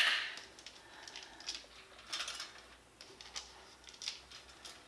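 A sharp click at the start, then faint scattered rustling and light pattering as shredded Parmesan is pinched from a plastic tub and sprinkled by hand over pasta.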